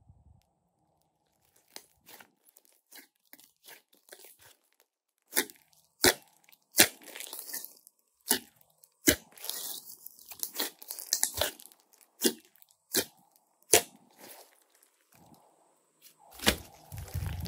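Hands pressing and squishing glossy slime: sticky crackling with sharp pops of trapped air, sparse at first and then frequent. Near the end comes a denser, louder squelch.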